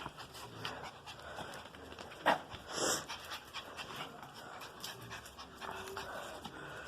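A dog panting, with a sharp click a little over two seconds in and a brief rush of noise about a second later.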